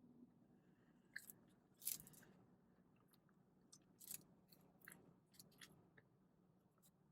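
Quiet close-up chewing and mouth sounds of someone eating: a dozen or so short crisp clicks and smacks, the loudest about two and four seconds in, over a faint steady low hum.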